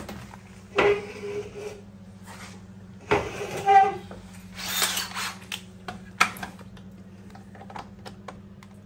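Hand tools and metal scooter parts clinking and clattering in a few separate bursts, one with a short metallic ring, over a steady low hum.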